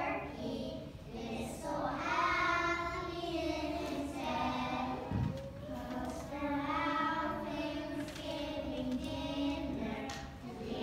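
A group of preschool children singing a song together, in phrases of held notes.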